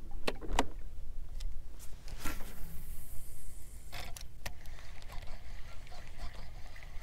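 Baitcasting reel clicking as it is handled, then cast: a hiss of line paying off the spinning spool for about a second and a half, which stops with a click. A faint steady whir of the reel follows as the retrieve begins.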